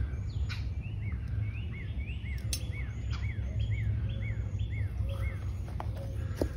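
A songbird singing a run of short, slurred, repeated notes, about two a second, over a steady low outdoor rumble, with a couple of faint sharp clicks.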